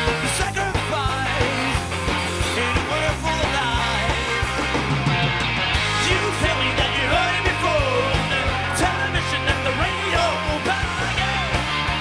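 Live pop/rock band playing with electric guitar, bass and drums, a lead line bending in pitch over steady bass notes.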